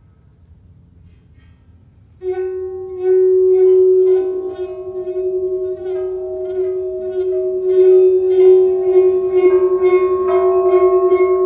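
Faint low hum, then about two seconds in a steady held musical tone starts suddenly. Higher held tones are layered on later, and the sound takes on a fast, even pulsing toward the end.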